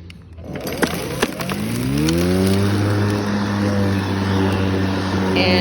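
EGO 56-volt battery lawn mower starting up: a couple of clicks, then the electric motor and blade spin up in a rising whine that levels off into a steady hum after about two seconds.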